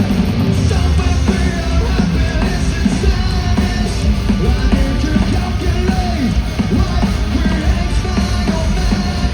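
Live hard rock band playing loud, with heavy distorted guitars, bass and drums, and a shouted lead vocal over them.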